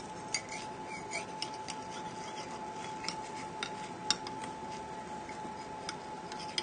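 Knife blade run around the inside of a ceramic ramekin to loosen a baked soufflé: faint scraping with scattered light clicks of metal on ceramic, over a faint steady hum.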